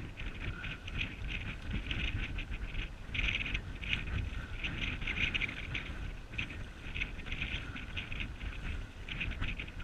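Water splashing and lapping in a continuous crackly patter, over a low rumble of wind on the microphone.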